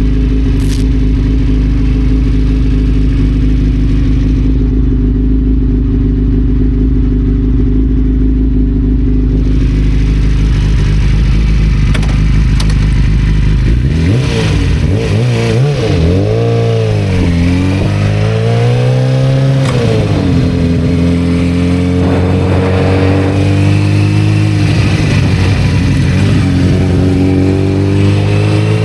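1991 Kawasaki ZZR-400's inline-four engine idling steadily, then about halfway through revving as the bike pulls away. The pitch climbs and drops back several times as it shifts up through the gears.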